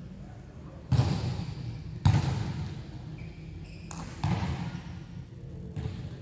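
Volleyball impacts during practice: four sharp smacks a second or two apart, each trailing off in a long echo around a large indoor hall. The second smack is the loudest.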